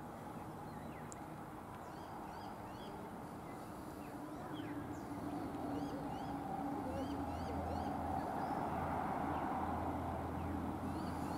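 Birds chirping with many short rising calls over a low engine rumble that comes in about halfway and grows louder, as of a diesel freight train approaching out of sight.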